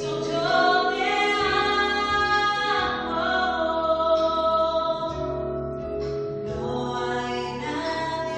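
A singer performing a Christian song in long held notes over a backing accompaniment with a steady bass, amplified through a hall's PA during a sound check.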